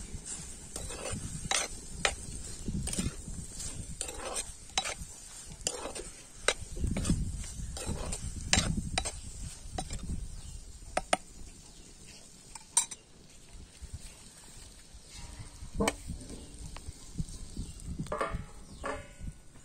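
Steel spoon stirring diced sponge gourd frying in a black kadai, with repeated clinks and scrapes of metal on the pan that thin out past the middle. Near the end a steel plate is set over the pan as a lid.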